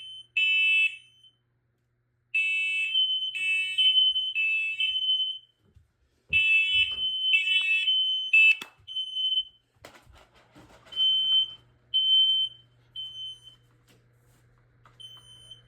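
Two smoke alarms set off by test smoke, sounding high beeps in groups of three about a second apart. The louder, harsher-toned alarm stops about nine seconds in, while a fainter alarm with a purer beep carries on. A few handling knocks come in the middle.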